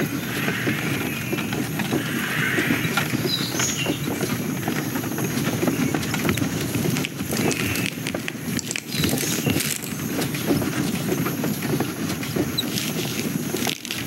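Animated-film sound-effects track with the dialogue removed: a continuous dense patter of small clicks and rustles, the foley of insect characters moving and stepping, with a few faint high chirps now and then.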